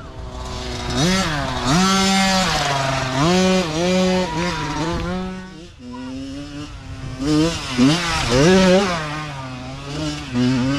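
Youth dirt bike engines revving hard on a climb, the pitch rising and dropping again and again with throttle and gear changes. The engines ease off briefly about halfway, then rev back up.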